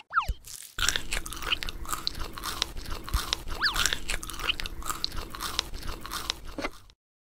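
Crunchy chewing and biting of crisp food, dense with sharp crackles, starting about a second in and cutting off abruptly just before the end, with a short squeaky chirp in the middle.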